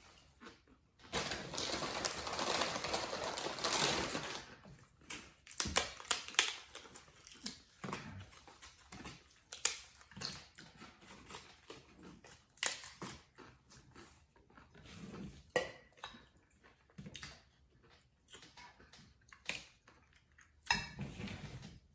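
Close-up crunching of corn tostada chips being bitten and chewed: a long stretch of dense crunching about a second in, then scattered sharp crunches and clicks.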